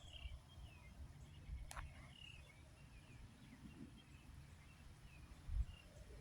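Faint birdsong: scattered short chirps and warbling calls over a low rumble. There is one sharp click just under two seconds in and a louder low thud near the end.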